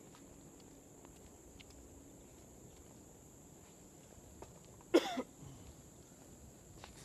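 Tennis rally with faint pops of the ball off the rackets every second or two. About five seconds in comes a short grunt close to the microphone, the loudest sound here. A steady high insect buzz runs underneath.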